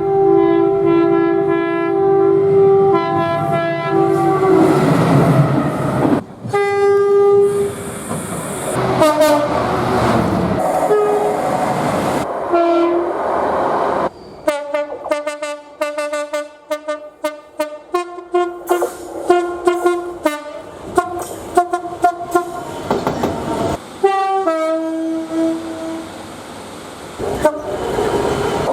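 A run of British train horns: short and long blasts at several different pitches, spliced one after another with abrupt cuts every few seconds, with the rumble and clatter of passing trains between and under them.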